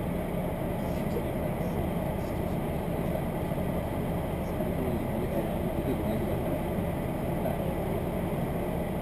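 Steady running noise inside a diesel railcar on the move: an even drone and rumble from the engine and the wheels on the track.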